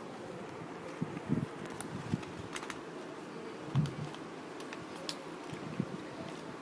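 Scattered light clicks and taps from handling a Tech Deck fingerboard and its packaging, over a steady fan-like hiss.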